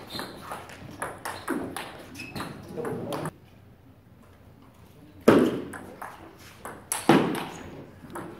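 Table tennis rally: the celluloid-type ball clicking sharply off bats and table in quick succession for about three seconds, then a pause. Two loud sudden bursts of sound follow, about five and seven seconds in.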